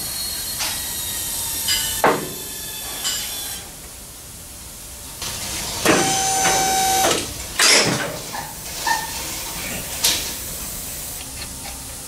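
Repair-shop noises: scattered metallic clanks and knocks over a steady hiss, with a short steady tone lasting about a second around the middle.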